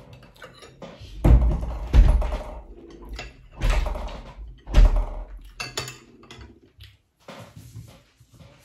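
Four dull thumps against the dining table in the first five seconds, among the small clicks and rustles of hands picking food off plates.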